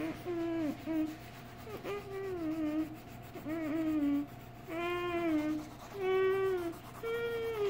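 A child humming a wordless tune, a string of short held notes that step up and down, over the faint rubbing of a coloured pencil on paper.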